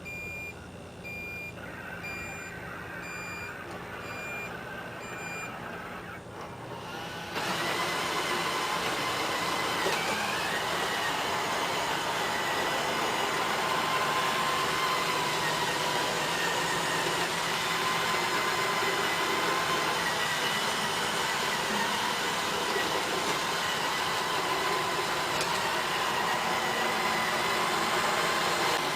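Roomba robot vacuum giving a run of short, evenly repeated beeps, then about seven seconds in its vacuum motor and brushes start up, running loud and steady with a high motor whine.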